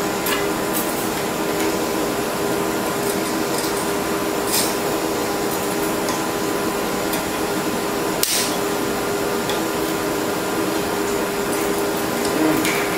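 Propane torch hissing steadily as it preheats the cracked cast iron exhaust manifold before nickel-rod welding, with a steady low hum under it and a couple of sharp metal clicks.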